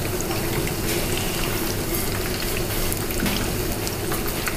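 Empanadas deep-frying in hot oil in a small pot: a steady sizzle of vigorous bubbling with fine crackles throughout.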